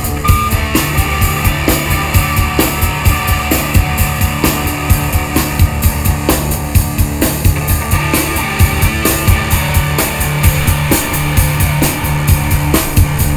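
Live rock band playing amplified electric guitar, bass guitar and drum kit, with a steady drum beat under a held bass note.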